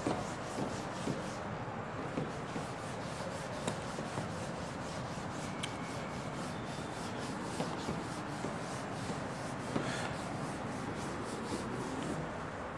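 Whiteboard eraser wiping across a whiteboard in repeated rubbing strokes.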